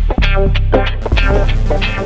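Intro music: a guitar-driven track with a heavy bass line and a steady beat.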